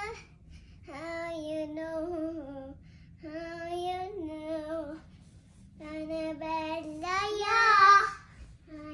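A young girl singing on her own without accompaniment, in three phrases with short pauses between them, the last one louder and rising in pitch near the end.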